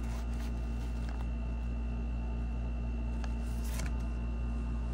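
Steady low hum of room tone, with a few faint ticks and crinkles from foil trading-card booster packs being handled and set down on a table.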